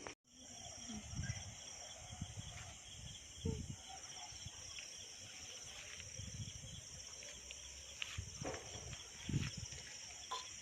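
Outdoor ambience of insects, likely crickets, chirping steadily in a high, fast-pulsing band, with scattered low knocks and rustles of handling. The sound drops out completely for a moment just after the start, an edit cut.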